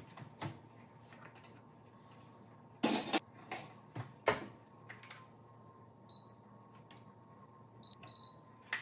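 A cast iron skillet clanks against the wall oven's rack and the oven door shuts with a knock, then the oven's control panel gives several short, high beeps as its buttons are pressed.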